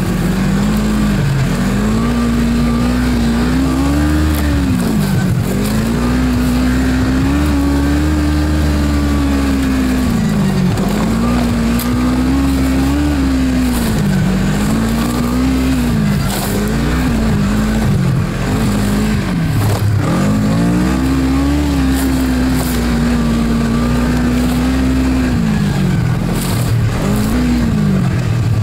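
Snowmobile engine running hard, its pitch dropping and climbing back again every few seconds as the throttle is eased and opened.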